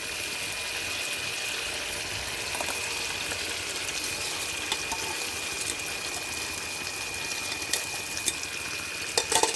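Prawn and tomato curry cooking in a kadai with a steady sizzling hiss, with a few sharp clicks of a utensil against the pan near the end.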